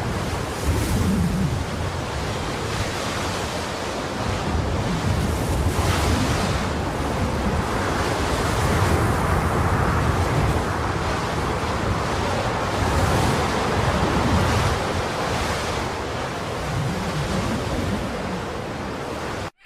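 Steady rushing noise with slow, swelling low rumbles, a dark ambience effect in the manner of wind or surf. It cuts off abruptly near the end.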